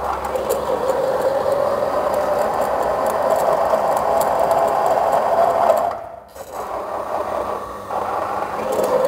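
Timken-type oil wear-test machine running under load from a torque-wrench lever: a steady grinding whine of its motor and the loaded metal test parts rubbing in oil. It drops away briefly about six seconds in, then starts again.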